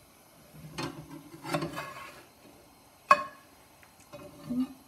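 Metal spatula scraping under pancakes and flipping them in a frying pan, with a sharp clink of metal on the pan about three seconds in.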